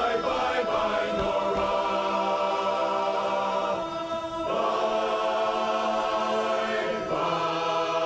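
Large men's barbershop chorus singing a cappella in close harmony, holding long sustained chords that shift to a new chord about a second in, again a little after the middle and once more near the end.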